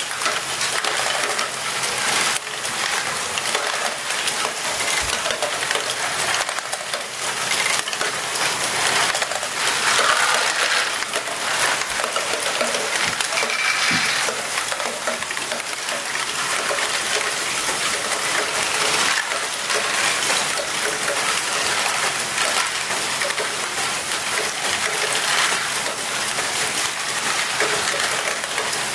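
Many small plastic balls clattering and rolling through the tracks, spiral tubes and lifts of a running LEGO Great Ball Contraption. The clatter is a dense, continuous rattle of tiny clicks, with no pauses.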